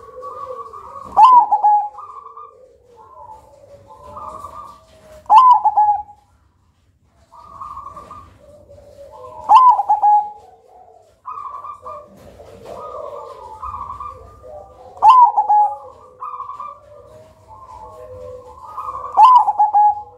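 Zebra dove (perkutut) singing its cooing song: five loud phrases about four seconds apart, each ending in a quick falling note, with softer cooing in between.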